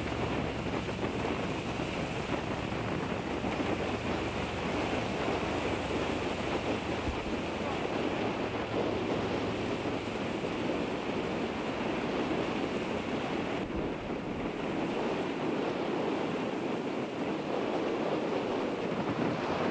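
Small choppy waves of a lagoon washing steadily onto a shingle shore, with wind blowing across the microphone and a low wind rumble that is heavier in the first several seconds.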